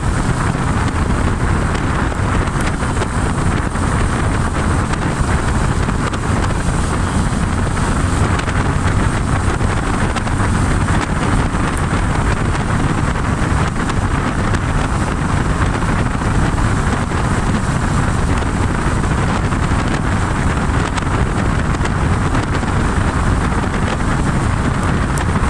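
Steady wind rush on the microphone of a moving Honda Splendor NXG 100 cc motorcycle, with the bike's small single-cylinder four-stroke engine running at a steady cruise beneath it.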